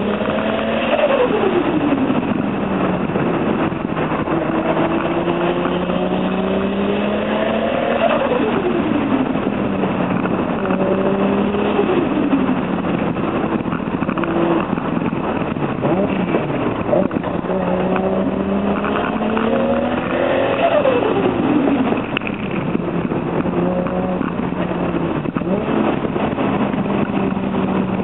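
Turbocharged Toyota Supra JZA80 straight-six, fitted with a big single T04Z turbo, driven hard: the engine note climbs slowly under load, then drops quickly when the throttle is lifted. This happens several times.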